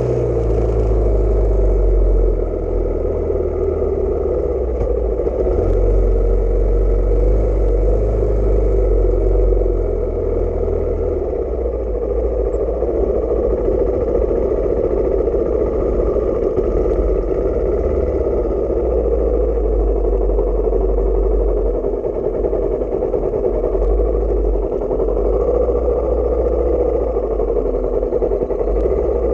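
Honda XR600 dirt bike's air-cooled single-cylinder four-stroke engine running steadily as the bike rides a dirt track, heard from a GoPro mounted on the bike.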